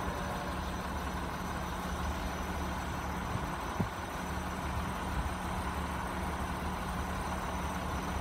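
Idling car engines giving a steady low hum that does not change, with one short knock about four seconds in.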